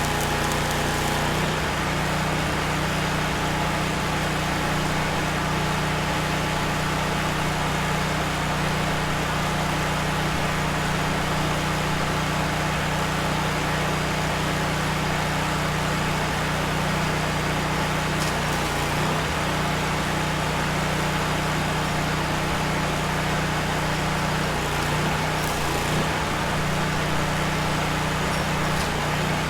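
An engine running steadily at a constant speed, with a slight change in its sound about a second and a half in.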